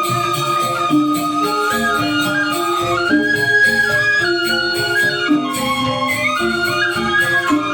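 Balinese gamelan angklung playing in the four-tone tuning: reong gong-chimes with grantangan bamboo xylophones, many short struck notes on a few fixed pitches under long held high tones.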